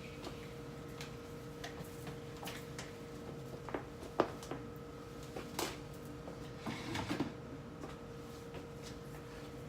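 Scattered light clicks and knocks of items and containers being handled while a refrigerator is cleaned out, over a steady hum, with a short cluster of knocks about seven seconds in.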